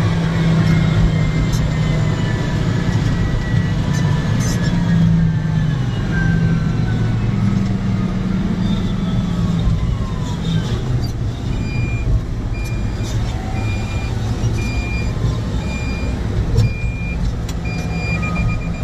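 Heavy diesel mining machine engine running steadily. About two-thirds of the way in a reversing alarm starts beeping at a steady pace, a little over one beep a second.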